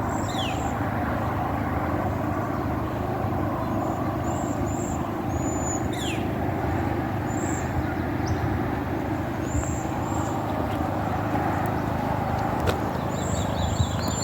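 High, thin bird chirps every second or two, with two quick falling whistles, one at the start and one about six seconds in. Underneath is a steady low rumble that is louder than the birds.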